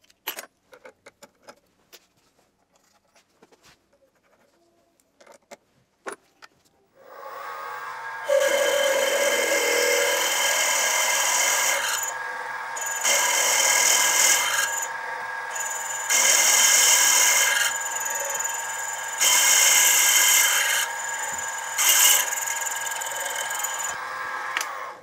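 After some faint scattered clicks, a Sieg SX2P mini mill's spindle starts about seven seconds in and runs with a steady whine. A drill bit cuts into the cast iron pedestal casting, in several louder stretches a few seconds apart.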